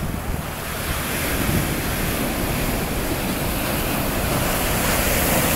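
Ocean surf breaking and washing up a sandy beach, a steady rushing wash that grows louder about a second in.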